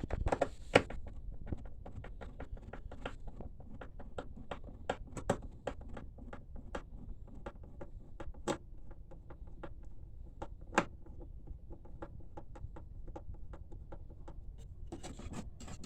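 Screwdriver and plastic printer-casing parts clicking and tapping irregularly as screws are taken out, with a few sharper knocks, one about 8.5 s in and one near 11 s.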